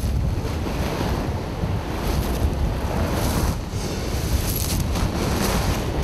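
Steady wash of surf on a beach, with wind rumbling on the microphone.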